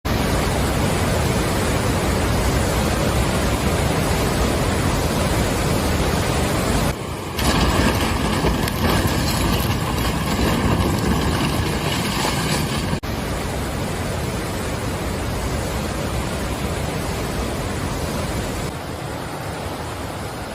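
Strong storm wind blowing, a steady rushing noise that changes abruptly twice, with a faint steady tone in the middle stretch.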